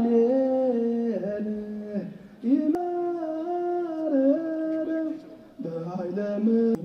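A slow, mournful chant sung or hummed in long held notes that bend slowly in pitch, with short breaks about two seconds in and again near the end.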